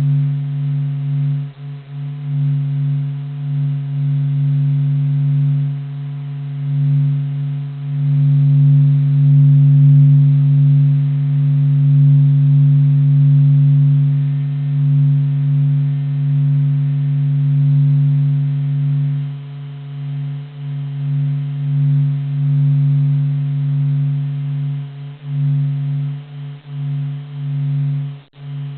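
Sonified vibrations of the Sun, recorded by NASA and converted into sound: a deep, steady hum of a few held low tones, swelling and fading in loudness.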